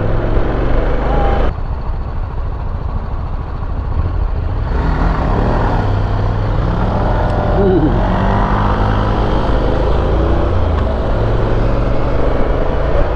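Honda NC750X motorcycle's parallel-twin engine running steadily while riding, under a rushing road and wind noise that drops away for about three seconds from a second and a half in.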